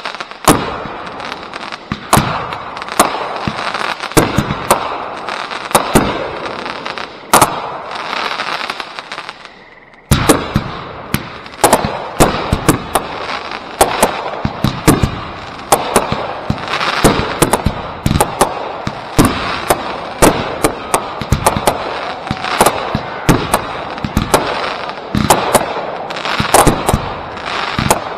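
Consumer fireworks cakes firing in a backyard show: a steady run of sharp bangs from shots launching and bursting overhead, a few every second. The bangs die away for a moment about ten seconds in, then come back denser and quicker.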